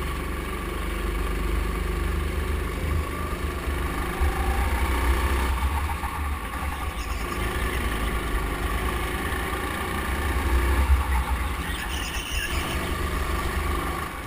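Go-kart running at speed around the track, heard from a camera mounted on the kart, with a steady heavy low rumble.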